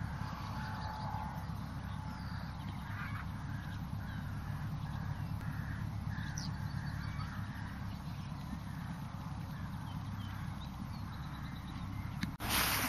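Crows cawing now and then over a steady low outdoor rumble. Near the end the sound cuts abruptly to a louder, even rushing hiss.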